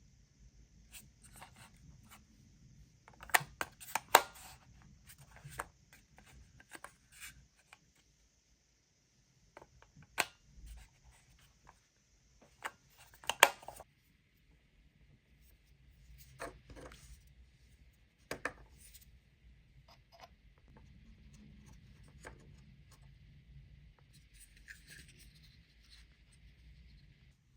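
Close-up handling sounds of unboxing: scattered sharp clicks and short scrapes and rustles of packaging and small plastic parts being handled, the loudest clicks about 3 to 4 seconds in and again about 13 seconds in, over a faint steady hiss.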